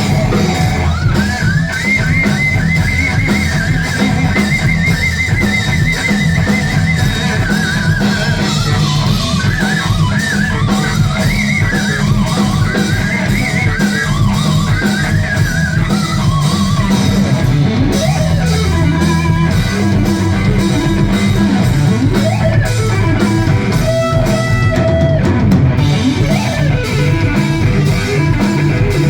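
Live instrumental rock/metal: a distorted electric guitar lead over drums and bass. The guitar first holds a long, wavering high note, then plays quicker runs with bends.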